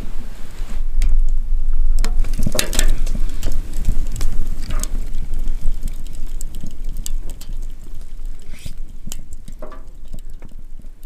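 Wood fire crackling and popping in a tent stove, with scattered sharp snaps over a low steady rumble, and a few brief hisses.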